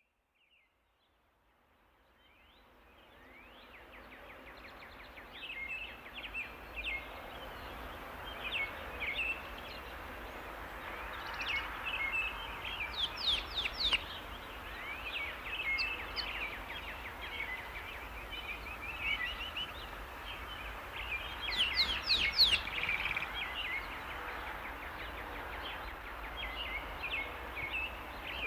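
Tropical rainforest ambience fading in from silence over the first few seconds: a steady bed of forest noise with many birds chirping and calling throughout, with two busier flurries of quick sweeping calls, about halfway and a little past two-thirds of the way through.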